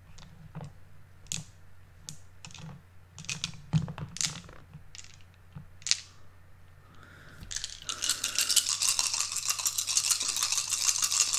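Game dice clicking as they are set down on the table, then from about seven and a half seconds in a fast, continuous rattle of dice being shaken together in the hand.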